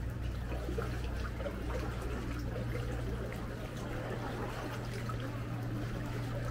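Small waves lapping and trickling against a rough limestone rock at the waterline, with many small crackles and ticks, over a steady low hum from motorboats.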